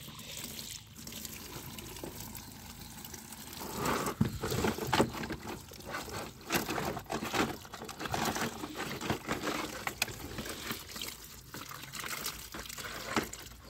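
Tap water running and splashing into a plastic bucket as muddy die-cast toy vehicles are rinsed under it by hand, with repeated short knocks and splashes as the toys are handled. It gets busier and louder about four seconds in.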